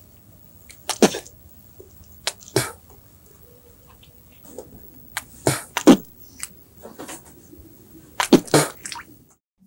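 Men spitting tobacco juice: several short, sharp spits coming in bunches, about one bunch every three seconds.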